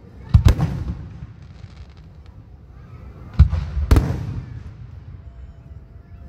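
Aerial firework shells bursting overhead: two booms close together about half a second in, then two more about three and a half and four seconds in, each trailing off in a rolling rumble.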